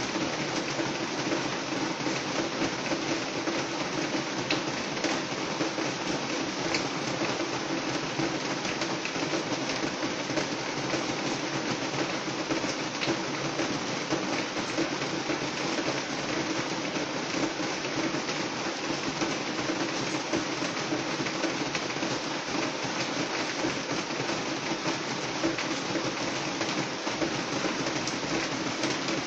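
Steady rain falling on a roof: a dense, even patter of countless drops that keeps up without let-up.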